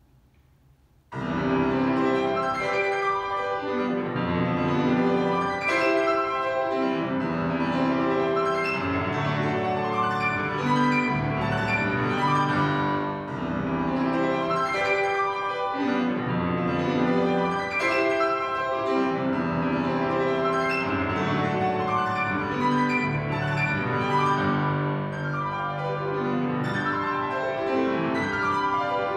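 Grand piano played solo: a classical piece that begins about a second in, out of near silence, and carries on with full chords and runs.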